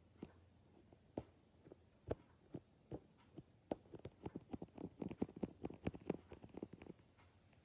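Light, irregular clicking and tapping of a leopard gecko's feet and claws on a clear hard-plastic Nerf magazine, a few scattered taps at first, then quicker, denser pattering from about halfway through.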